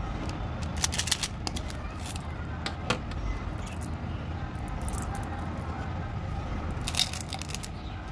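Hands handling a plastic candy tube: a few sharp plastic clicks and crackles as its cap is worked, about a second in, near three seconds and again near seven seconds, and sugar-coated chocolate candies tipped out into a palm. A steady low rumble sits underneath.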